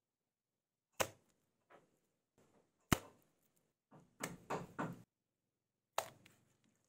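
Sharp knocks at irregular intervals: single hits about a second in, near three seconds and about six seconds in, with a quick run of several knocks in between.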